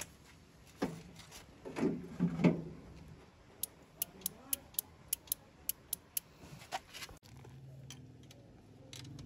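An uncovered automotive relay clicking about ten times in quick succession, roughly four clicks a second, as its contacts are worked by hand and snap open and shut. A few dull handling knocks come before the clicks, and a low steady hum starts near the end.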